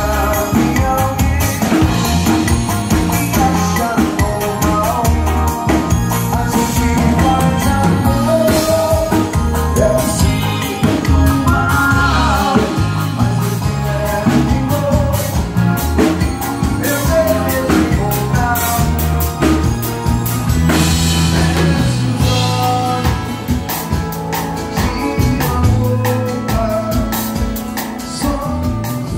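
Live band playing through a 2x2 PA system: a male voice singing over electric guitars and a drum kit.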